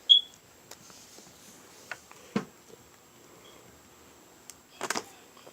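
Sparse handling sounds: a short high squeak at the start, a single knock about two seconds in, and a brief clatter near the end.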